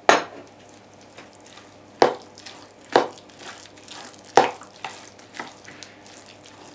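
Metal spoon stirring raw minced chicken and cottage cheese in a plastic blender bowl, with a few sharp knocks of the spoon against the bowl, the loudest at the start and about two, three and four and a half seconds in.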